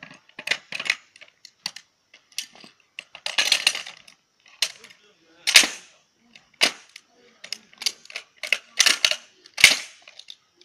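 Metal parts of a light machine gun being fitted together by hand during assembly: a series of sharp, irregular clicks and clacks, with a longer rattle about three seconds in.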